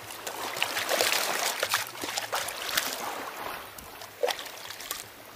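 Shallow seawater at the water's edge lapping and splashing, with many short splashes as something is dipped and moved through it.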